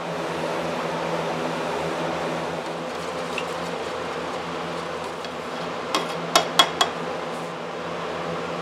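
Window fan running steadily with a low hum. About six seconds in come four quick sharp taps as the can of finish and its stirring stick are handled.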